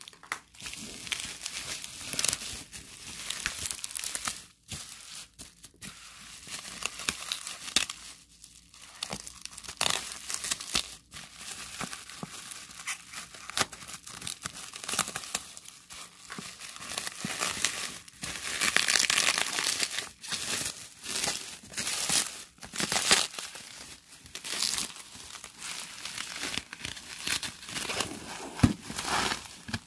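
Gift wrapping and packaging being torn and crumpled by hand: an irregular run of crinkles and rips, busiest past the middle.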